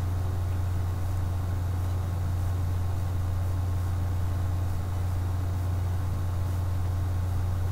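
A steady low hum with a faint hiss, unchanging throughout: background noise with no other sound.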